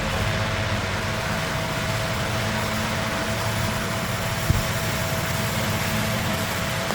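Steady machine hum and hiss with a constant whine, and a single faint click about four and a half seconds in.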